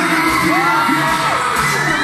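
A crowd of fans screaming and cheering close by, many high, wavering voices at once, over loud amplified pop music from a live stage show.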